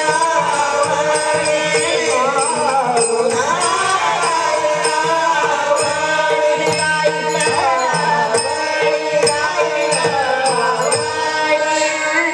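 A Marathi devotional bhajan: a girl's voice singing a gliding melody over a steady held drone, with frequent sharp percussion strikes keeping time.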